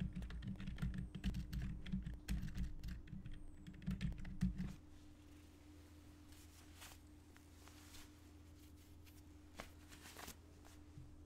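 Typing on a computer keyboard: a quick run of key clicks with dull thuds for about five seconds, then a few single clicks over a faint steady hum.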